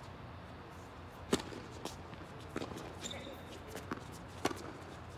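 Tennis ball struck by racquets and bouncing on a hard court during a doubles rally: about five sharp pops, spaced half a second to a second apart, the loudest about a second in. There is a brief high squeak around three seconds in.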